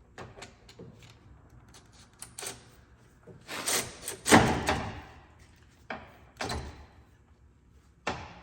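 Metal hand tools clinking and clanking against metal as a wrench and socket extension are worked on a stubborn fitting, a run of sharp clicks and knocks with a louder, longer clatter about four seconds in.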